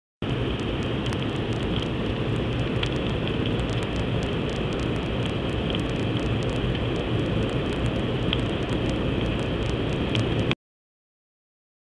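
Steady rushing cabin noise of an aircraft in flight, with faint scattered clicks. It starts a moment in and breaks off into dead silence about ten and a half seconds in.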